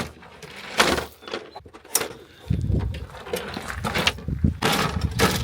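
Several sharp knocks and clattering handling noises, with a low rumble setting in about two and a half seconds in.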